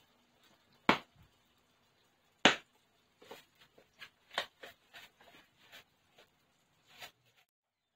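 Two sharp knocks about a second apart, then a run of short crackles and clicks as a plastic bag and a cardboard drink-mix box are handled.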